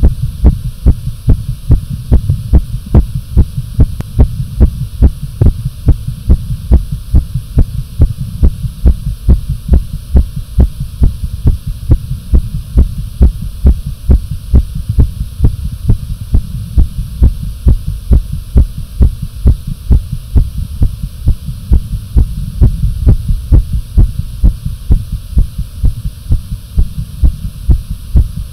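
A person's heartbeat after exercise: low, dull thuds in a quick, steady rhythm, about one and a half beats a second.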